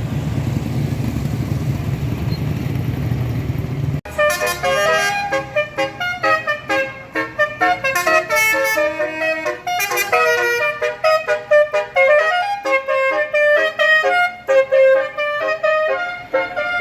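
A steady rumble of engine and traffic noise, cut off about four seconds in by a bus's telolet horn. The horn is a multi-trumpet air horn playing a fast, jumping melody of short notes.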